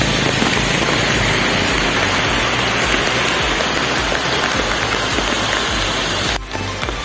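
Heavy monsoon rain falling, a dense steady hiss with irregular low rumbling underneath; it drops off suddenly near the end.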